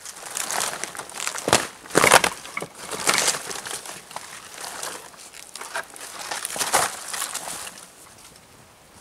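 Bark being pried and peeled by hand off a dead birch log: irregular dry crackling and tearing with a few sharper cracks, dying down near the end.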